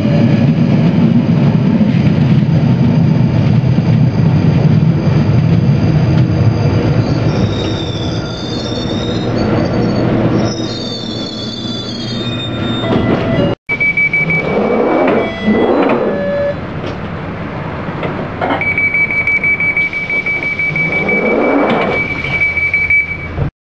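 London Underground 1995 Stock train slowing into a station: loud running rumble with a falling motor whine, then high squeals from the wheels and brakes as it comes to a stop. After a break, a steady high electronic tone sounds and a rising motor whine as the train moves off.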